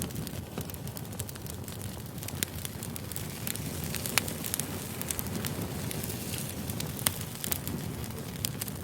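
Burning firewood crackling: a steady low rush of flames with sharp pops scattered throughout, the loudest pop about four seconds in.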